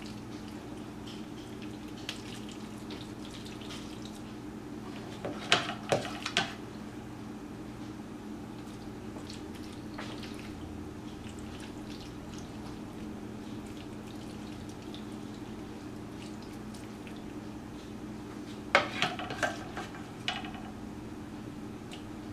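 Two short bursts of clinks and scrapes from a utensil against a metal baking tray as sticky egg-and-cheese-coated macaroni is pressed into shape, one about five seconds in and one near the end, over a faint steady hum.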